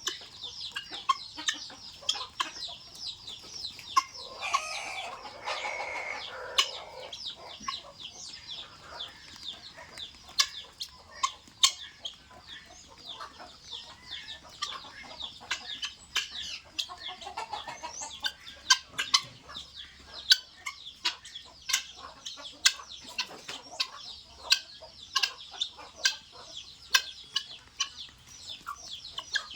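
Guinea fowl flock feeding: a steady stream of short, high chirping calls, each sweeping down, cut through by many sharp clicks. A lower, harsher call rises above them about four seconds in and lasts a couple of seconds.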